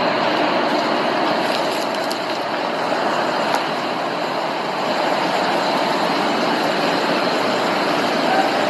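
Steady hiss of heavy falling rain on a wet street.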